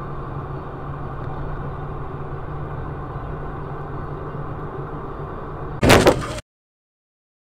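Steady engine hum and road noise inside a moving car, recorded by a dashcam. About six seconds in comes a sudden, very loud noise lasting about half a second, after which the sound cuts off.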